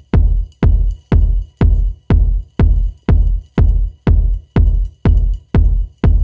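Electronic background music with a heavy, steady kick-drum beat, about two beats a second.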